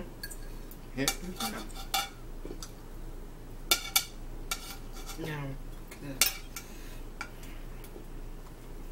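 Metal forks and a knife clinking and scraping against ceramic dinner plates while food is cut and picked up, with several sharp clinks scattered through, the loudest about four and six seconds in.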